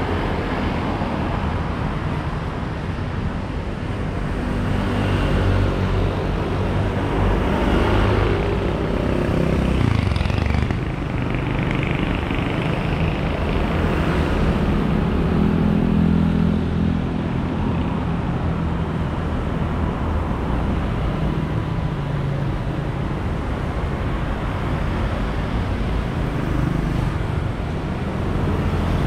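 Steady roadside traffic: motorbikes and cars passing close by, their engines and tyres swelling and fading as each goes past, with the loudest passes about eight and fifteen seconds in.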